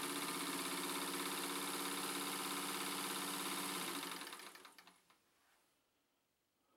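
Vintage Singer electric sewing machine running at a steady speed under knee-lever control, its motor humming. About four seconds in the lever is released and the machine winds down to a stop within a second.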